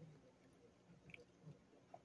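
Near silence with faint chewing of a soft powdered donut and a few soft, brief ticks.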